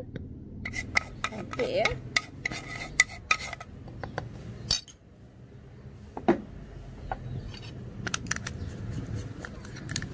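Metal spoon clinking and scraping against a ceramic bowl as ground spice powder is stirred, in a quick run of small clicks, with scattered taps later on.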